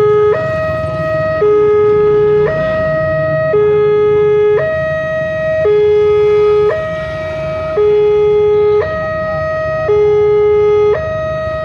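Wantech electronic level-crossing alarm sounding its two-tone warning, switching between a high and a low tone about once a second, to signal an approaching train.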